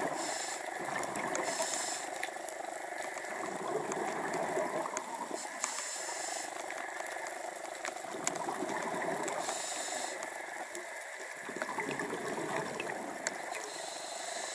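Underwater sound of scuba breathing through a regulator: surges of exhaled bubbles come and go every few seconds, with scattered faint clicks throughout.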